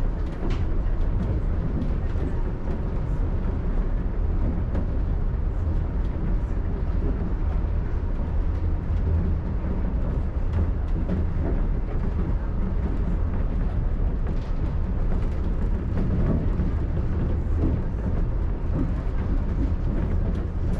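Shonan Monorail suspended monorail car running at speed between stations. It makes a steady low rumble from its motors and rubber tyres inside the track beam, heard from inside the car.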